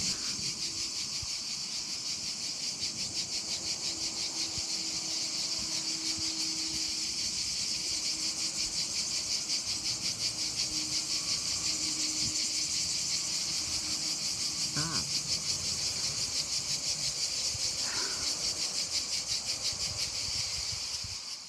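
Male cicadas singing in the treetops: a loud, dense, high buzzing chorus that pulses rapidly and holds steady, then cuts off suddenly at the end.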